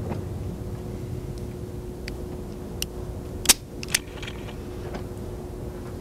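Double-action revolver dry-fired on an empty chamber: a few sharp metallic clicks of the trigger pull and the falling hammer, the loudest about three and a half seconds in and another just after, over a steady low hum.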